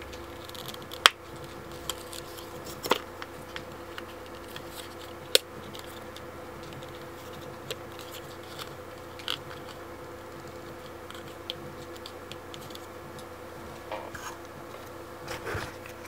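Scattered sharp clicks and light taps over a steady low electrical hum, the loudest click about a second in.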